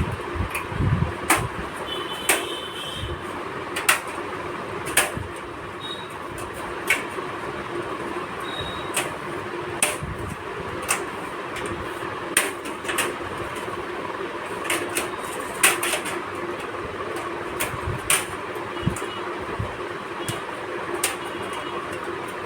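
Motherboard I/O shield, a thin metal rear panel, being fitted and pressed into a computer case's back opening: scattered sharp clicks and taps of metal on metal, over a steady background hum.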